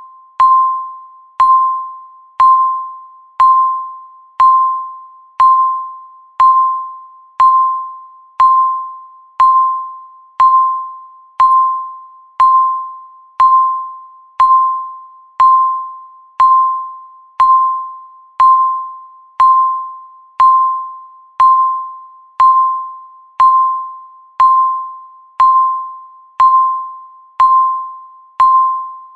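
Countdown timer beeping once a second: a single mid-pitched electronic ding that starts sharply and fades before the next, repeating evenly.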